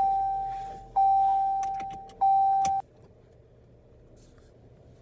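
Car warning chime: a single steady ding that repeats about every 1.3 s, each one fading before the next, and stops about three seconds in.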